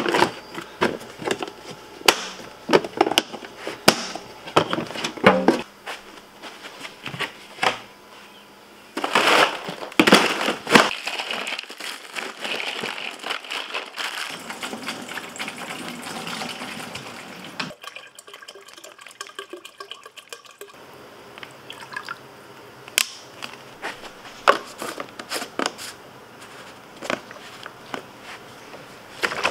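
Handling sounds while packing food: clicks and knocks as a plastic storage container's lid is latched shut, then ice and meltwater shifting and clattering as food is packed into a cooler.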